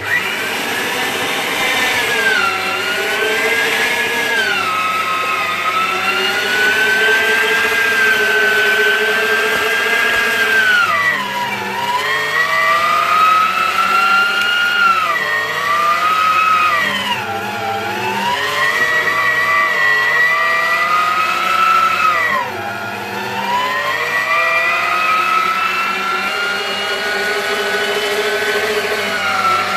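Electric meat grinder running as it minces chopped beef for a second time. Its motor whine starts suddenly and dips in pitch several times as it takes the meat, then picks up again.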